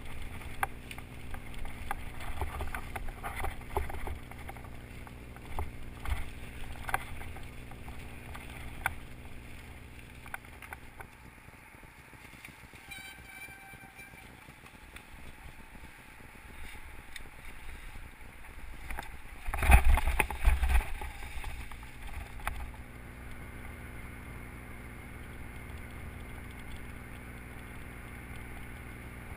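Mountain bike ridden over a rough trail covered in dry leaves and rocks, heard from a bike- or helmet-mounted camera: the bike and camera mount rattle and knock over bumps. About two-thirds of the way through comes a loud cluster of jolting knocks, and after it a steady low rumble.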